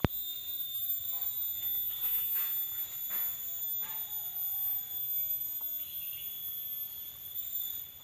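A steady high-pitched insect whine from the trees, holding one pitch throughout, with a single sharp click at the very start.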